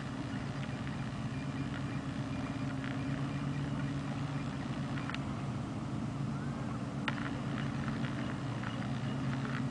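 An engine running steadily, a low even hum that holds the same pitch throughout, with a few faint ticks over it.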